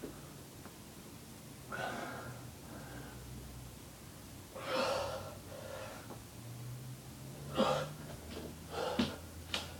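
A person breathing hard from the exertion of push-ups, in short forceful breaths and gasps every second or two, coming quicker near the end.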